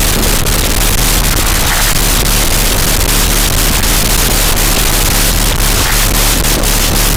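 Loud, steady hiss of static-like noise with scattered crackling clicks.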